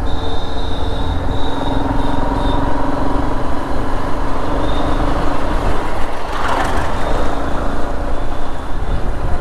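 Road traffic and engine noise heard from a motorbike riding through city streets: a steady low rumble, with a short hiss about six and a half seconds in.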